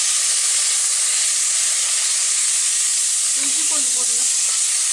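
Freshly added chopped tomato sizzling in hot oil with sliced shallots in a pressure cooker pan, giving a loud, steady frying hiss.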